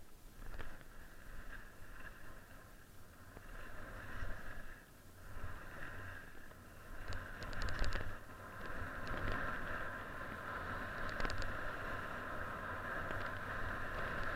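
Skis sliding downhill through snow, a steady hiss with wind rumbling on the camera's microphone. A few sharp scrapes or clicks come about seven to eight seconds in and again around eleven seconds. The hiss grows steadier and louder over the last few seconds.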